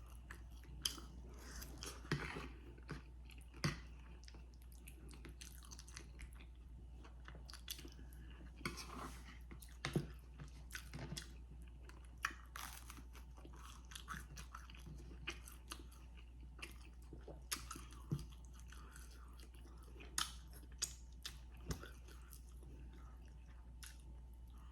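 A person chewing and biting crispy fried chicken wings, with irregular crunches a second or two apart.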